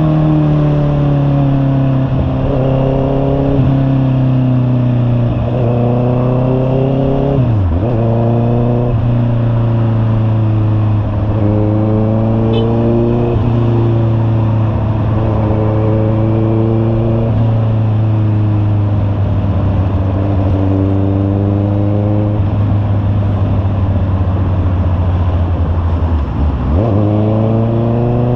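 Honda CB650R's inline-four engine running through an aftermarket muffler while riding. The pitch climbs and falls repeatedly as it accelerates and shifts gears, with a sharp drop when the throttle closes, about a quarter of the way in and again near the end.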